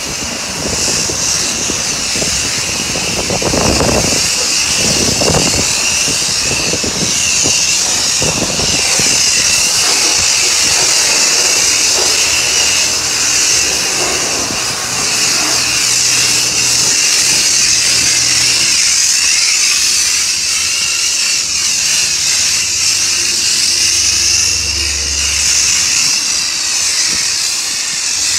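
Self-service car wash high-pressure water wand spraying onto a foam-covered car, rinsing the foam off. A loud, steady hiss with a constant high whine under it.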